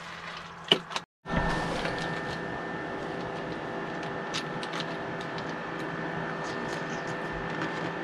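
Metal spoon clinking and scraping now and then in a bowl of cereal as a child eats. Under it runs a steady machine hum with a high whine. The sound drops out to silence for a moment about a second in.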